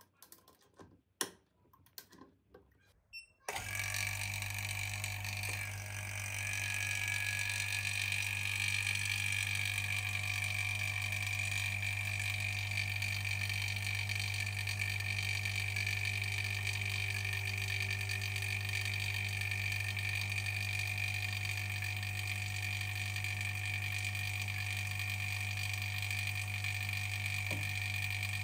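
A few light clicks, then about three and a half seconds in a laminating machine starts and runs with a steady low hum and a steady high-pitched whine.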